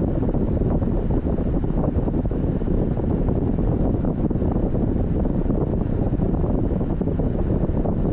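Steady low rumble of a car on the move: wind buffeting the microphone mixed with road noise, with no distinct events.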